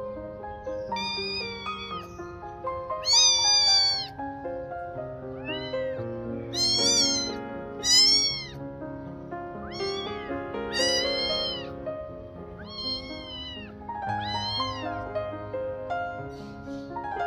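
A kitten meowing again and again: about nine high, arching meows, a second or so apart, with the loudest around three, seven and eight seconds in. Piano background music plays under them.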